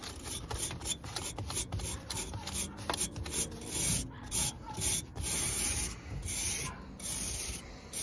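A small hand brush scraping dust and debris off the fins of a dirty air-conditioner evaporator coil. It makes quick, short strokes at first, then longer, slower strokes from about halfway through.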